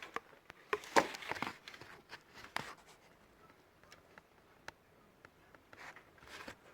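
Scattered light knocks and clicks of handling, several in the first three seconds with the loudest about a second in, then only a few.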